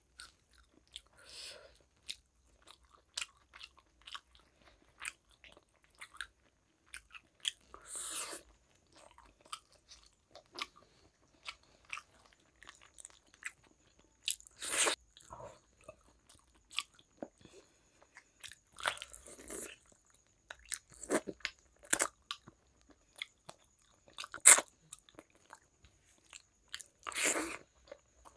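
Close-miked eating of fish curry and rice by hand: chewing and biting with many short sharp mouth clicks and several louder half-second mouthfuls, the loudest click about three quarters of the way through.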